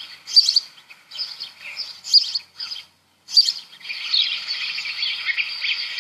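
House sparrow chirping, played from a recording: single chirps about a second apart, then from about four seconds in a dense, unbroken run of chirping.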